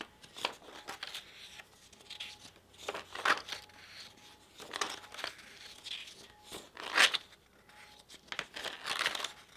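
Paper pages of a spiral-bound printed book being turned one after another: a run of separate rustles and page flips, the loudest about three and seven seconds in.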